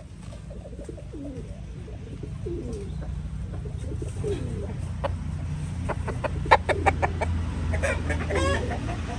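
Rooster clucking with short, low, repeated calls over a steady low hum. A quick run of sharp clicks comes about two-thirds of the way in, and a louder call follows near the end.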